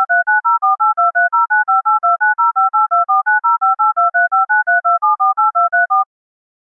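Touch-tone telephone keypad dialing: a rapid run of short two-tone DTMF beeps, about six a second, one per key press, stopping about six seconds in.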